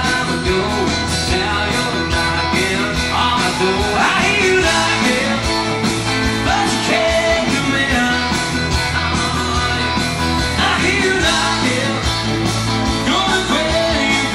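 Live rock and roll band: a man singing lead into a microphone over drums and a full band playing with a steady beat.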